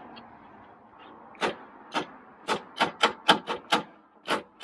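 A run of sharp, irregular clicks, two or three a second, starting about a second and a half in, from hands working on the car's interior trim.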